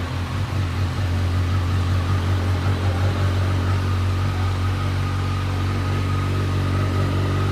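Brand-new Kawasaki Z1100 SE's inline-four engine idling steadily just after its first start.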